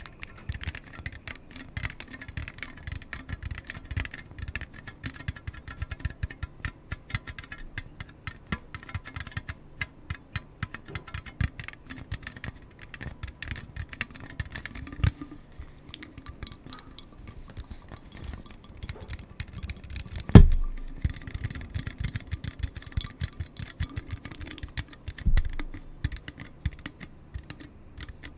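Rapid, close-miked clicking and tapping, like fingers on keys or hard plastic, with a louder knock about 20 seconds in and a smaller one about 25 seconds in.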